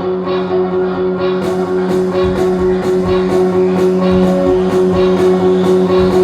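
Recorded dance music with a steady beat; a bright, high beat joins about a second and a half in.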